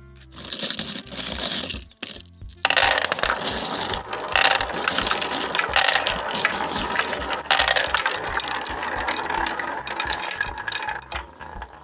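Many marbles clattering and rolling together down a marble run, a dense rattle of small hard impacts that breaks off briefly about two seconds in, then runs on and fades near the end.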